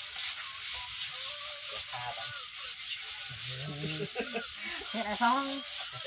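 Paintbrush bristles scrubbing finish onto a wooden door in quick back-and-forth strokes, a scratchy rubbing about four strokes a second. Faint voices sound behind it partway through.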